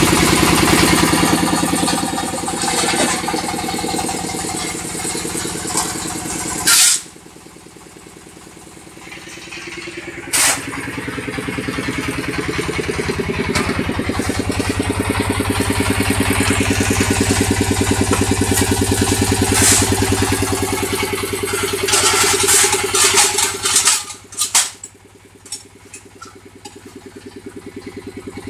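Concrete-block making machinery running with a steady, engine-like drone from the mortar mixer and the block press's vibrator motor. The drone drops away for a few seconds about a quarter of the way in and again near the end, and there are several sharp clanks from the press.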